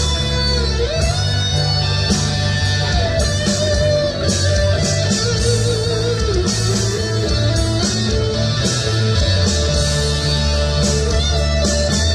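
Pop song music with an electric guitar playing the lead melody over bass and a steady drum beat, with cymbals keeping time.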